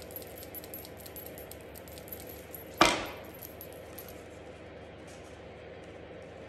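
Small ticks of paper and a plastic glue stick being handled, then one sharp knock about three seconds in as the glue stick is set down on the table.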